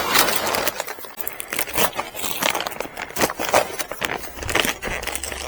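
Polyethylene greenhouse cover crinkling and rustling as it is handled and pulled over the steel frame corners, a dense run of irregular crackles and clicks.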